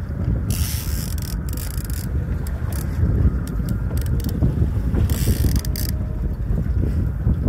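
Trolling reel being cranked as a fish is brought to the boat, a mechanical winding with scattered clicks, over heavy wind rumble on the microphone. Two short hissing spells come about half a second and five seconds in.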